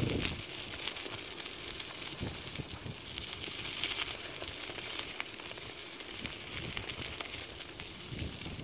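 Dog scooter wheels rolling over a gravel track, a steady dense crackle of small stones with the dogs' paws on the gravel.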